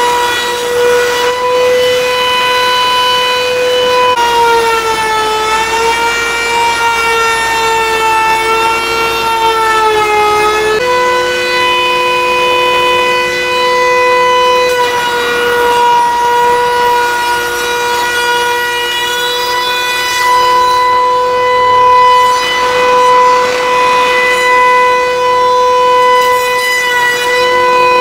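DeWalt-powered cutter head on a gantry slab-flattening machine running as it surfaces a wood slab: a loud, steady high-pitched whine with many overtones. About four seconds in, its pitch sags and wavers for several seconds as the cutter takes load, then steadies, and a second, lower tone joins it.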